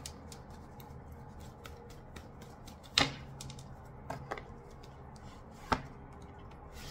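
Tarot cards being handled at a table: four sharp clicks, the loudest about three seconds in, with faint ticks of card handling between them.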